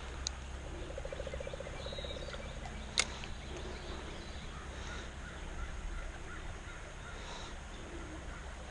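Outdoor creekside ambience with a steady low rumble. A buzzy, rapidly pulsing animal call runs for a second or two starting about a second in, and a single sharp click sounds about three seconds in.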